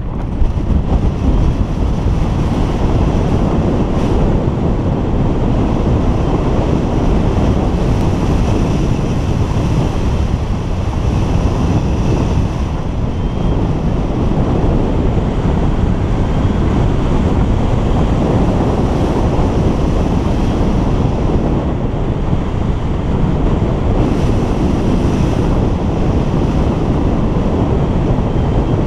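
Wind rushing over a hang glider's wing-mounted camera microphone as the glider launches and flies, a loud, steady rush that jumps up in the first second and then holds.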